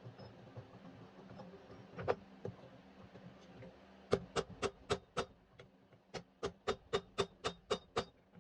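Hammer striking hot rebar on an anvil: two quick runs of blows at about three to four a second, with a short pause between them.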